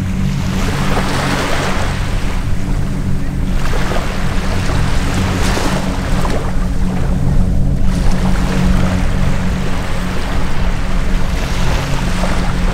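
Steady drone of a formation of about ten aircraft flying overhead, with a low hum under rushing noise that swells and fades, as of wind on the microphone.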